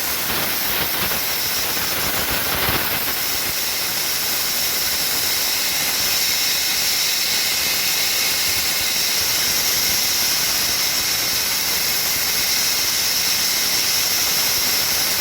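Compressed air from an air-compressor blow gun hissing steadily into the water line of a Bosch tankless propane water heater, blowing the water out of its pipes to drain it for winter.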